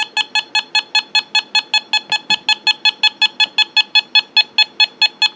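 Handheld microwave (RF) meter beeping rapidly and evenly, about eight or nine short beeps a second, as its antenna is held up toward the ceiling: the meter's audio alarm for a strong signal, which the owner takes for a microwave weapon attack.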